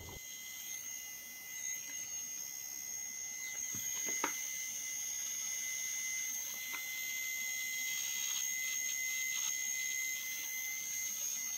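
LEGO Technic 43362 light 9V geared mini-motor running with no load after its rebuild: a quiet, steady high-pitched whine, with a couple of brief clicks about four seconds in.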